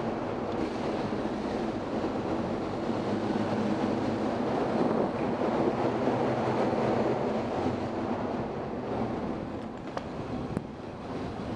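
Motorcycle running as it rides off a ferry's vehicle deck, under steady wind rumble on the microphone, a little louder around the middle. Two sharp knocks near the end as the tyres roll onto the steel loading ramp.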